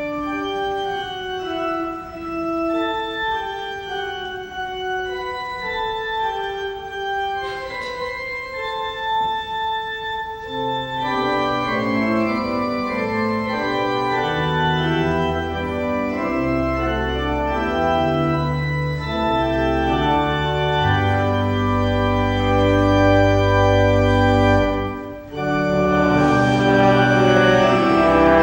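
Church organ playing a hymn: a single melody line at first, then full held chords with deep pedal bass notes from about eleven seconds in. There is a brief break a few seconds before the end.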